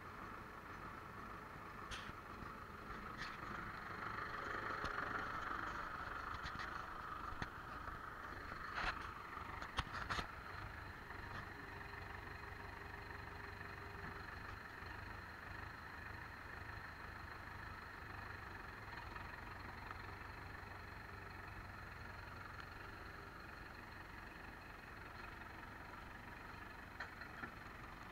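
Farm tractor engine running steadily, with a few sharp knocks about a third of the way through.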